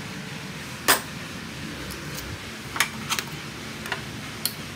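A few sharp metallic clicks over a steady low hum as a steel cooking pot is handled. The loudest click comes about a second in, and lighter ones follow as a gas stove's knob is turned up to a high flame near the end.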